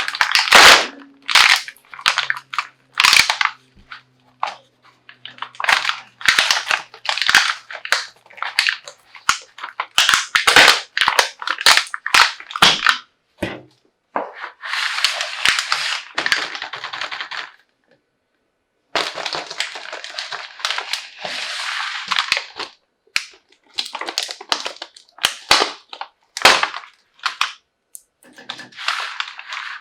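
Plastic toy packaging being handled and opened: a dense run of sharp plastic crackles and clicks, with two longer stretches of crinkling or tearing about halfway through.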